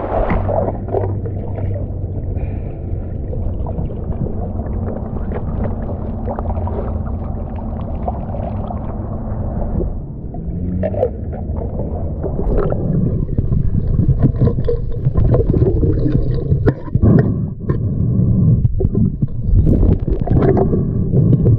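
Water splashing and churning around a snorkeller's fins as he wades through a shallow river. Later the camera goes under, and the sound turns muffled, with gurgling and irregular knocks and scrapes.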